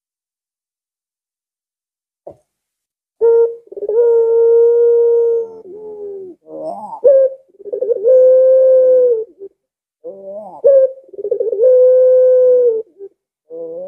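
Puter pelung (white Barbary dove) cooing, starting about three seconds in: three phrases, each a short rising note followed by a long, drawn-out steady coo. This held coo is the 'lengkungan' that keepers value and that sets other puters calling.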